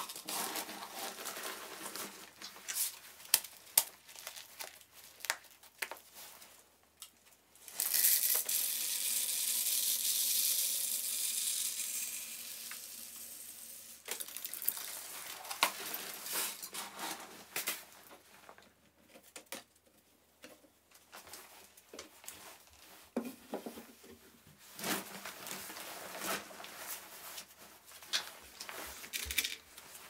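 Birdseed poured into a plastic drink bottle: a steady rushing hiss for about six seconds, fading toward the end, with crinkling and rustling of plastic and seed handling before and after it.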